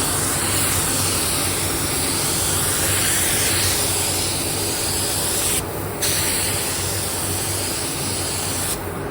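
Paint spray gun spraying the base colour coat, a steady hiss of atomising air and paint; the trigger is let off briefly a little past halfway, then the spraying resumes and stops shortly before the end. A steady low hum runs underneath.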